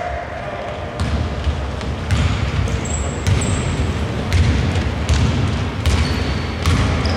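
A basketball being dribbled on an indoor court floor while players run, with irregular thuds of ball and footfalls and a few sharp knocks, echoing in a large hall.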